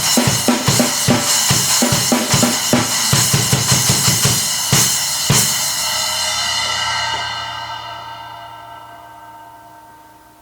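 Drum kit played in quick strokes with cymbal hits, among them a Zildjian 10-inch A Custom splash cymbal, ending on a final hit about five seconds in. The cymbals then ring on and slowly fade away.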